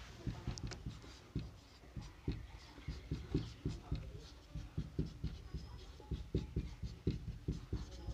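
Marker pen writing on a whiteboard: an uneven run of short strokes and taps as letters are written by hand.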